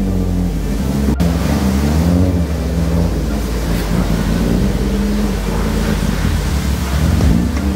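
BMW E36 325i's straight-six engine running as the car pulls away at low speed, under a background music track. A single sharp click sounds about a second in.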